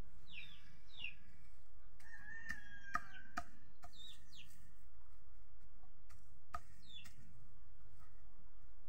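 Chickens calling: short falling peeps now and then, and a held, crow-like call about two seconds in. Scattered sharp knocks of a knife chopping through leaves onto a hard surface.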